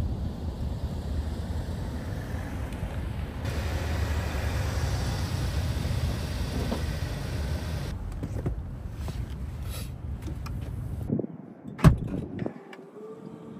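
Steady low rumble of a car on the road, then a sharp thump near the end with a few lighter knocks around it.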